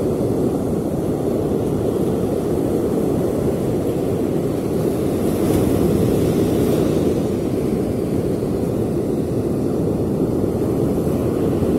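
Steady rushing of ocean surf on a beach at night, mixed with wind on the microphone, swelling a little about halfway through.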